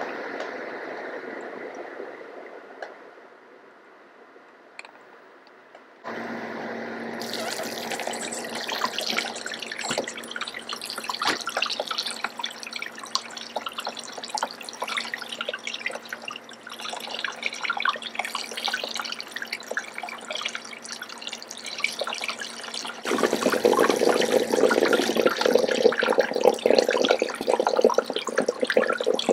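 Running water splashing and dripping. It starts abruptly about six seconds in after a quieter stretch and gets louder near the end.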